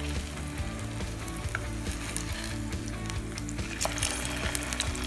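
Tikkis shallow frying in hot oil in a nonstick pan, sizzling steadily. A wooden spatula turns one over, and the sizzle grows louder in the second half, with a few light clicks and scrapes.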